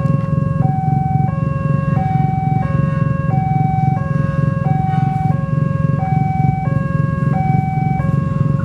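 Railway level-crossing warning signal sounding continuously, an electronic two-tone ding-dong alternating about once every 1.3 seconds, over a steady low rumble.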